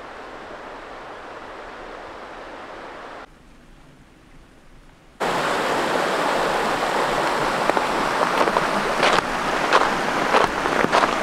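Rushing mountain river, a loud steady water noise that starts abruptly about five seconds in after a quieter hiss, with a few short crunching steps near the end.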